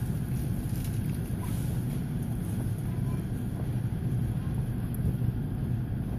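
Steady low rumble of in-store background noise, with no distinct events.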